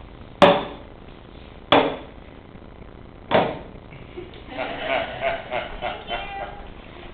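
Three sharp knocks, spaced about a second and a half apart, as drinking glasses and a bowl are set down on a box used as a table. A couple of seconds of soft voices follow.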